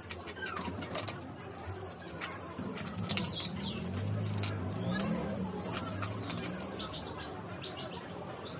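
Bird calls: a couple of quick high chirps about three seconds in, then one long high whistle that rises and falls, over a low hum and scattered light clicks.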